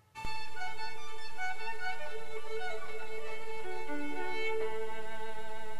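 Recorded violin music starting suddenly about a quarter of a second in, with long held notes and several pitches sounding together.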